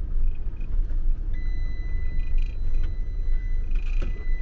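Campervan engine idling with a steady low rumble, heard from inside the cab. About a second in, a steady high electronic tone sounds and holds.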